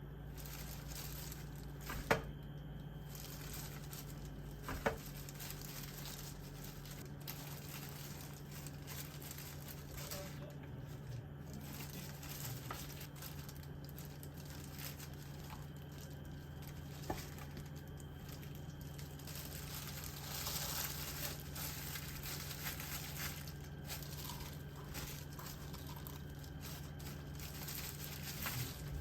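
Quiet kitchen handling sounds: light rustling, a few sharp clicks or taps, and a slightly busier stretch about two-thirds of the way through, over a steady low hum.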